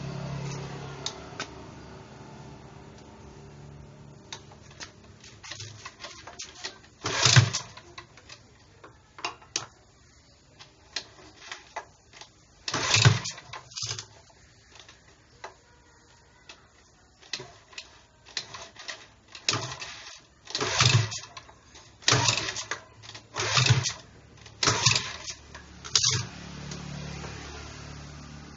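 Recoil starter of a Firman FPG1500L four-stroke gasoline generator being pulled about eight times, the later pulls in quick succession, each pull a short loud rasp as the engine turns over. Near the end a low, steady engine hum comes up.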